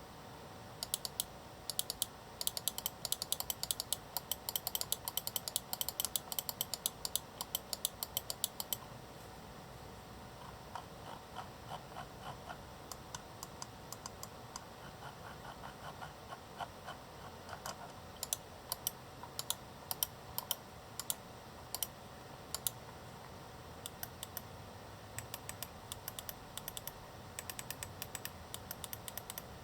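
Logitech G102 (G203) gaming mouse's button switches clicking: a fast run of sharp clicks for about the first nine seconds, then a stretch of softer, duller clicks, then single clicks and short groups spaced apart.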